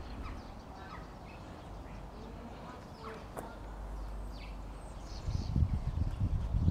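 Outdoor ambience with small birds chirping now and then. About five seconds in, a low buffeting rumble on the microphone grows louder and becomes the loudest sound.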